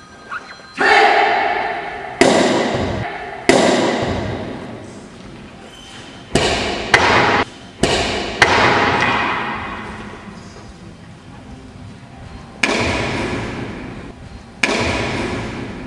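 Wooden boards cracking under karate kicks and strikes in tameshiwari board breaking. There are about nine sharp cracks, some in quick pairs, and each one echoes on for a second or two in a large hall.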